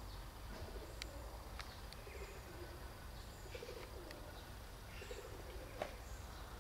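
Pigeons cooing in short, low, repeated phrases, with small birds chirping faintly and a few light clicks, the sharpest one near the end.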